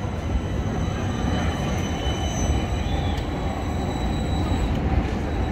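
Articulated low-floor tram rolling past at close range: a steady rumble of wheels on the rails, with a few faint, thin, high whining tones over it.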